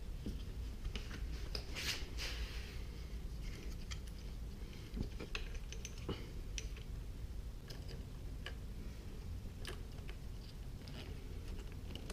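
Scattered light clicks and rustling, with one longer rustle about two seconds in, as hands handle wiring, a paper instruction sheet and the motorcycle's plastic panels, over a low steady hum.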